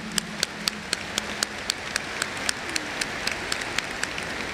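Audience applauding: a crowd's even clapping, with sharp single claps close by standing out above it at a few a second.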